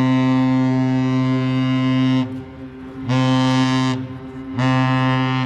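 Ship's horn of the lake freighter Arthur M. Anderson sounding a salute: one long, deep blast ending about two seconds in, then two short blasts. One long and two short is the customary master's salute.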